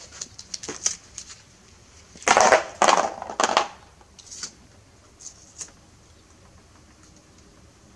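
Tape being pulled off wires and crumpled by hand: a few light clicks, then a loud crinkling rustle starting about two seconds in and lasting about a second and a half, then a few faint ticks.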